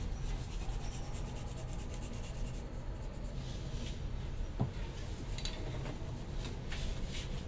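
Coloured pencil scratching on paper in quick, short shading strokes: a fast run of strokes for the first couple of seconds, then a few separate strokes. There is one light tap about halfway through.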